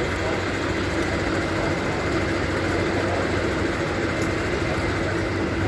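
Steady drone of idling fire engines, an even engine hum with a faint steady whine over it.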